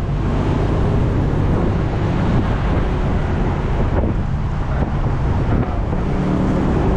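Wind buffeting the microphone over the steady engine and road noise of a moving vehicle.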